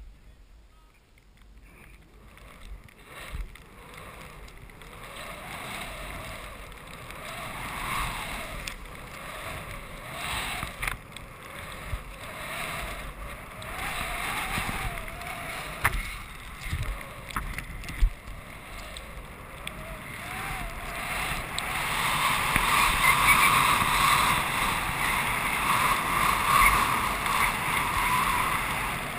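Skis hissing through deep powder snow, with wind rushing over the microphone, growing steadily louder as the skier gathers speed in the second half, with a few scattered clicks.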